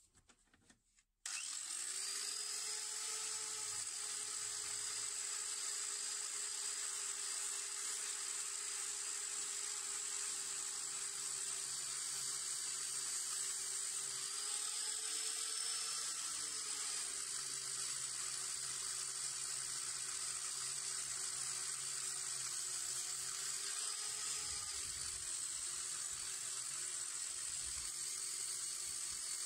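Handheld electric angle grinder with a 120-grit abrasive disc, starting about a second in and then running steadily as it grinds rust off a metal moped luggage rack. Its whine dips slightly in pitch a couple of times as the disc is pressed on.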